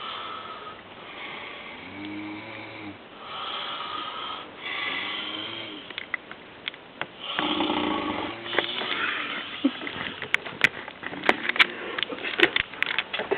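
An old man snoring, one long rasping breath after another. A run of sharp clicks comes in over the last few seconds.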